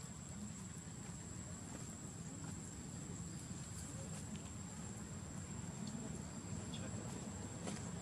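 Quiet outdoor ambience: a steady low rumble under a thin, steady high-pitched insect drone, with a few faint clicks.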